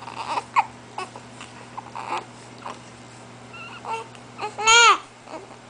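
Babies fussing: short whimpers and babbling sounds, then one loud cry that rises and falls in pitch near the end.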